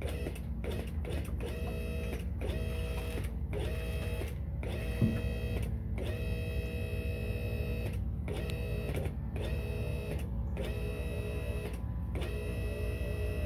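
QuickJack 5000 portable car lift's electric-hydraulic power unit running as the lift raises the car: a steady low hum under a pump whine that comes in stretches of about a second with short breaks between. One sharp knock about five seconds in.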